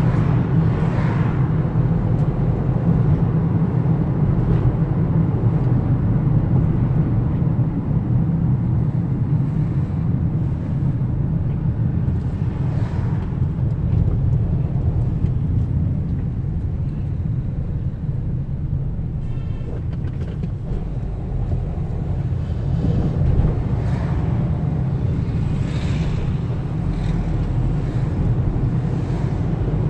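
Steady low rumble of a car travelling on the road, with engine and road noise, swelling louder a few times.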